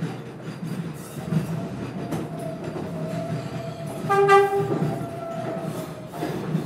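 New York City 7-line subway train (R188 cars) rolling over track joints, with scattered wheel clicks and a steady whine. A single short horn toot comes about four seconds in and is the loudest sound.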